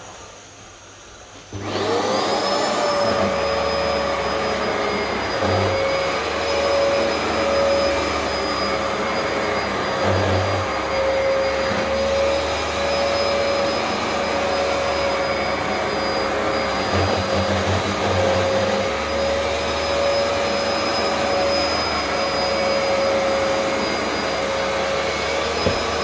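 Vax upright carpet washer switched on about a second and a half in. Its motor whine rises quickly, then runs steadily.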